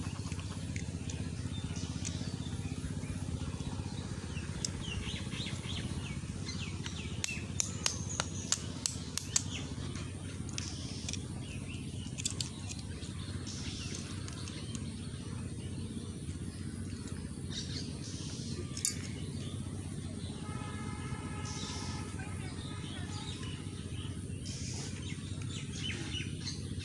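Knife clicking sharply against a shell on a brick, in a quick run of taps about seven to nine seconds in, with a few single clicks later. Birds chirp over a steady low rumble of outdoor background noise.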